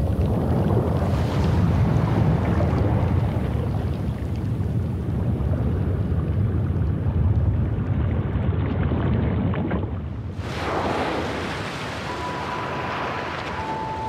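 Ocean water noise, a steady deep rushing. About ten seconds in it swells into a louder, brighter rush, and a thin steady tone comes in near the end.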